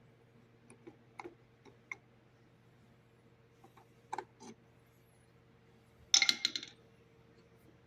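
Scattered light metallic clicks and taps of small parts and tools being handled during motorcycle rear-wheel removal. About six seconds in comes a quick rattle of several louder clinks, all over a steady low hum.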